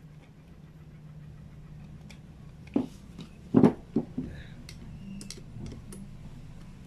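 Metal knocks and clicks of an aluminium motorcycle carburetor body being handled and set down on a concrete floor while a long screwdriver works a screw in it: a cluster of sharp knocks about halfway through, then lighter ticks, over a faint steady hum.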